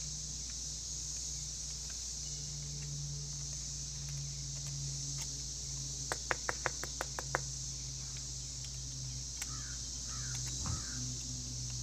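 Quiet background with a steady high hiss and low hum. About halfway through comes a quick run of about seven light clicks, roughly five a second, from hand work on a small-engine carburetor.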